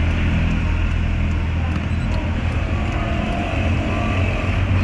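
Toyota Avanza engine idling steadily, a low even hum.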